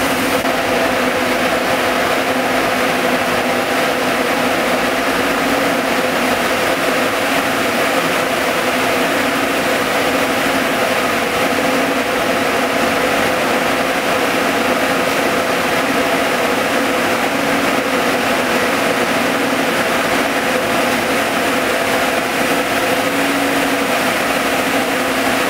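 Ring spinning frames fitted with compact spinning units running in a spinning mill: a steady, dense machine whir with a few held hum tones that does not change.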